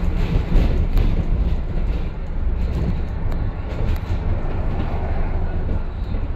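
Double-decker bus in motion, heard from on board: a steady, loud low rumble of engine and road noise.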